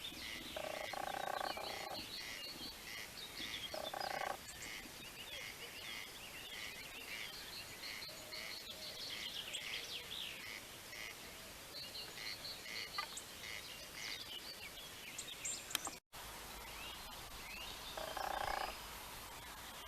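Frogs croaking in three loud bursts of rapid pulses, each under about a second and a half long, over a chorus of repeated short high calls and bird chirps.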